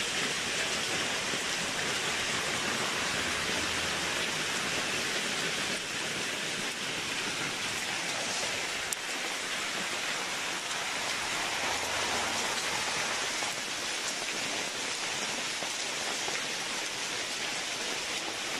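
Shower of small volcanic stones (lapilli) from an Etna paroxysm falling onto the ground, a steady dense patter like heavy rain, with one sharp tick about nine seconds in.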